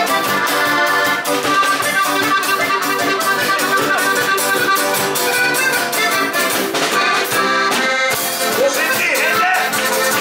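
Live folk-pop dance band music led by a button accordion, with electric guitar, bass and a drum kit keeping a steady beat.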